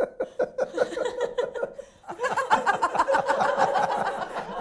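People laughing: a run of quick laughs dies away about two seconds in, then louder laughter starts up again, including a woman's open, hearty laugh.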